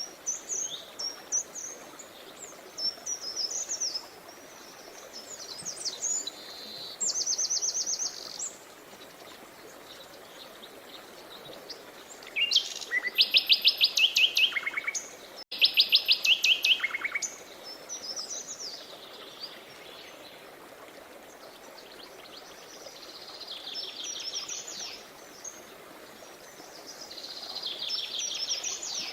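Songbirds singing in repeated high, rapid trills, loudest about halfway through, over the steady rush of a river.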